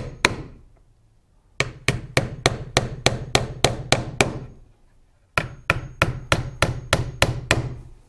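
Hammer driving 1.25-inch finish nails into a wooden birdhouse side board. Two runs of quick, even taps come about five a second, with a pause of about a second between them.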